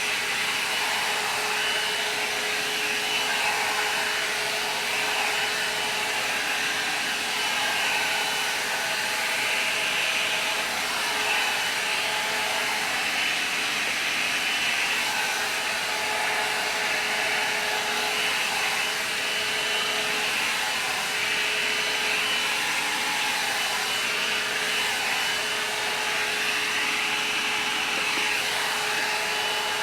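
INGLAM hair dryer brush running steadily, blowing air through hair with a steady whine.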